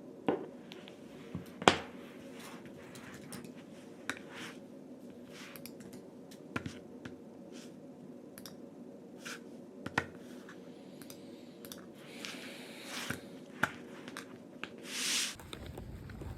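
Scattered small clicks and taps of objects being handled by hand in a small room, over a steady low hum, with two short hissing rustles near the end.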